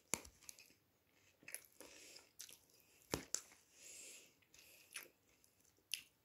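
Faint, close-up chewing of a mouthful of vegan Caesar salad, with soft crunching and a few sharp clicks, the loudest about three seconds in.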